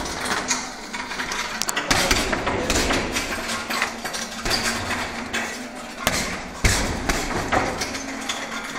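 Gloved punches thudding into a hanging heavy punching bag in an irregular run of strikes, a few of them harder than the rest.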